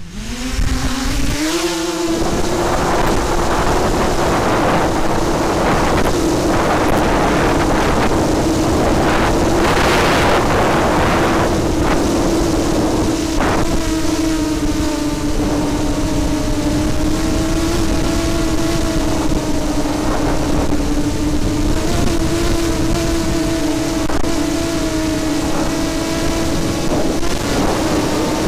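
Motor and propeller of an FPV model aircraft, heard from its onboard camera. It spins up with a rising whine over the first couple of seconds at takeoff, then holds a steady, slightly wavering whine in flight. Gusts of wind rush over the microphone, mostly in the first half.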